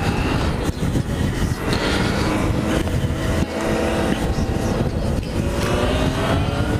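Motorcycle engine running under way, heard through a helmet-mounted camera microphone with wind rush; the engine pitch climbs as the bike accelerates, most clearly over the last few seconds.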